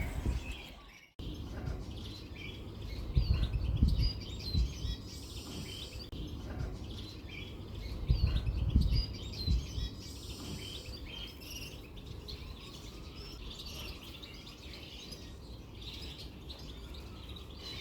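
Small songbirds chirping and twittering, many short calls. Low rumbling bumps on the microphone come around three to four seconds in and again around eight to nine seconds in.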